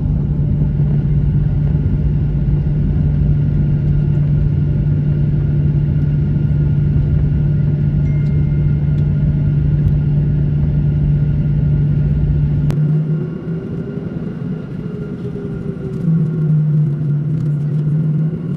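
Boeing 737 jet engines and wheels rumbling on the runway, heard from inside the cabin during the landing roll, with a steady low hum. About two-thirds of the way through, the deep rumble drops off suddenly as the jet slows; the hum swells again briefly near the end.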